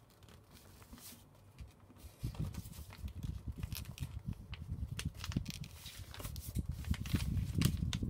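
Folded A4 paper being creased hard by hand against a tabletop. From about two seconds in there is a dense run of rubbing, pressing and paper rustling, growing louder toward the end and stopping suddenly.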